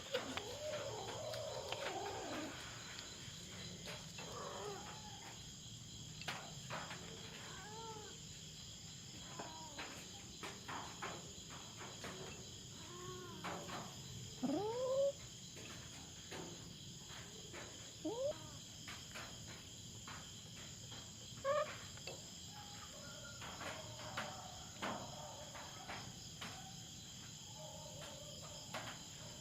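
Cats meowing and yowling in short, rising drawn-out calls, several scattered through, over the steady chirring of crickets.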